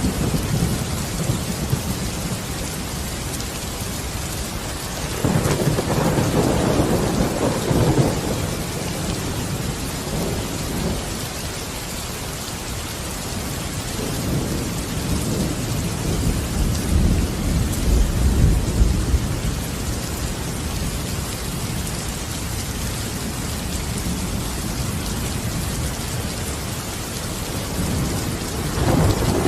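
Steady rain with rolling thunder: one rumble breaks in suddenly about five seconds in, another builds and fades in the middle, and a third begins near the end.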